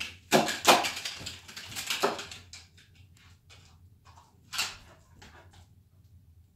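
A small dog's claws clicking, scrabbling and skidding on a tiled floor as it dashes about in a frenzy. The scuffling comes in bursts through the first two seconds and once more about four and a half seconds in.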